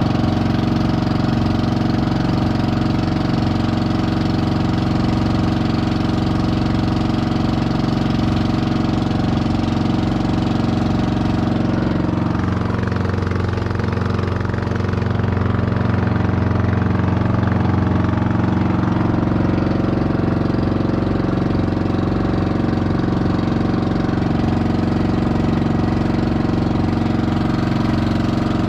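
Fishing boat's engine running steadily, its note shifting briefly about halfway through.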